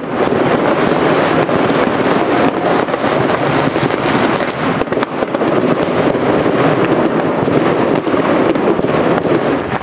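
Dense, unbroken barrage of fireworks and firecrackers going off, many sharp cracks and bangs overlapping over a constant rumble.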